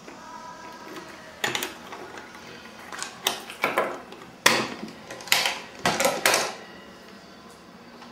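Small metal padlock being unlocked with a key and worked off the hasp of a wooden box, then the box opened. A string of sharp metallic clicks and rattles, a few close together in the middle.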